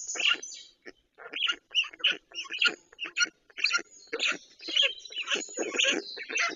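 Birds calling in a rapid run of short, raspy notes, several a second, growing denser in the second half.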